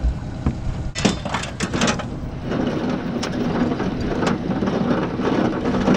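Knocks and rattles of gear being handled on the bow deck of an aluminium tinny, a quick cluster about a second in and a couple of single knocks later. Under them runs a steady motor hum.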